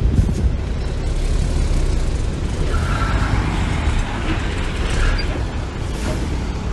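Heavy diesel construction machinery running steadily with a low rumble, with two short higher squeaks about midway and near the end.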